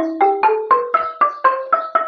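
Khmer roneat ek, a boat-shaped wooden xylophone, played with two padded mallets striking in octaves: a quick, even run of notes, about four strokes a second, each ringing briefly.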